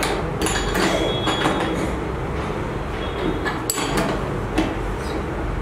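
Small metal parts (pins, rings, nuts and bolts) clicking and knocking now and then as they are handled and fitted together by hand, over a steady low background noise.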